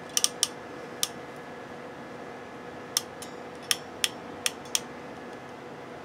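iWiss SN-2549 ratcheting crimping tool clicking as it is worked on a tiny wire terminal: about eight sharp, irregular clicks, several spaced close together in the second half. A faint steady hum sits underneath.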